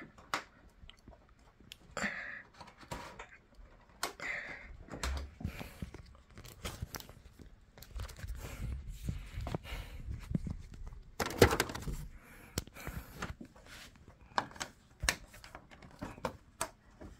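Hands prying at the plastic back cover of a Samsung TU7000 TV, giving scattered clicks, scrapes and creaks as the cover is worked loose from its clips. The loudest clicks come in a cluster about two-thirds of the way through.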